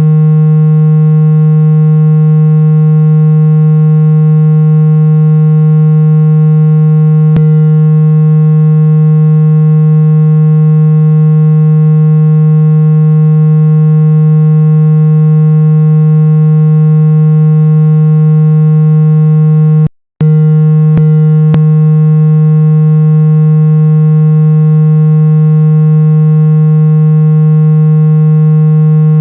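A loud, steady, low-pitched electronic tone with a buzzy edge from many overtones, played as a sound meant to unblock the ears. It cuts out for a moment about 20 seconds in, and a few faint clicks show up.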